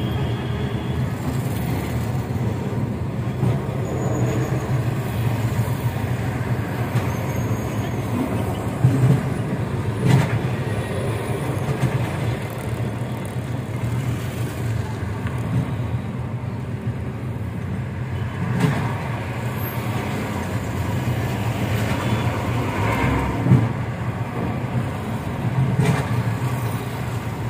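A vehicle engine running steadily with road traffic noise, and a few short knocks.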